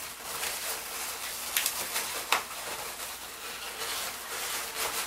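Latex 260 twisting balloons rubbing and squeaking against each other as an inflated balloon is twisted into a balloon figure, with two sharp squeaks about one and a half and two and a half seconds in.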